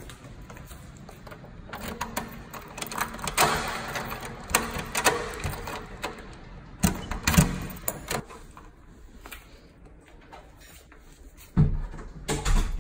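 Irregular rustling, clicks and knocks of things being handled and moved about, loudest about seven seconds in and again near the end.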